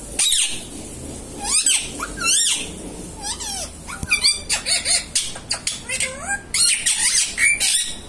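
Indian ringneck parakeet calling: a string of short, high chirps and squawks that rise and fall in pitch, coming faster in the second half.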